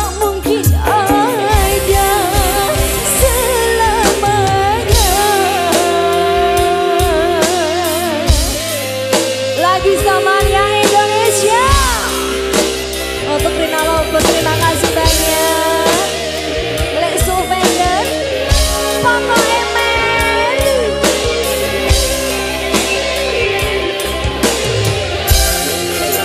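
Live dangdut koplo band playing an instrumental interlude: a lead melody with bending, wavering notes over electric guitars, drums and bass.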